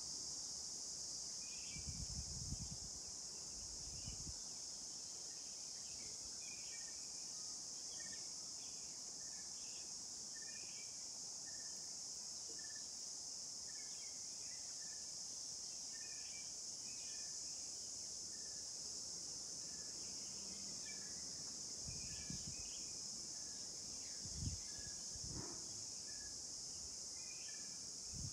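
Steady high-pitched insect chorus, with scattered short bird chirps and a short call repeating a little faster than once a second. A few soft low thumps come about two seconds in and again between twenty-two and twenty-five seconds in.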